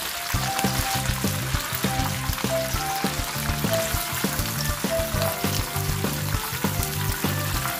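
Battered shrimp deep-frying in a pan of hot oil, a steady hiss of frying during their second fry for crispness. Background music with a steady beat plays alongside.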